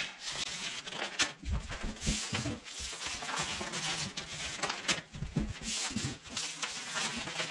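Sped-up handling of paper drywall tape: quick rustling and rubbing as the tape is pulled off the reel, creased and pressed by hand into mudded inside corners, with scattered clicks and soft thumps.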